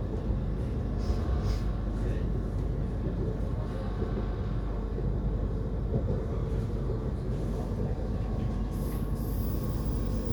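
Train running along the rails: a steady low rumble with rattle, and a higher hiss coming in near the end.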